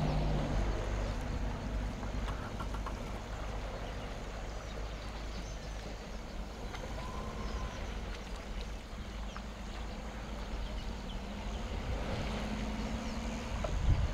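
Water splashing and sloshing as African elephants wallow and play in a dam, over a steady low rumble.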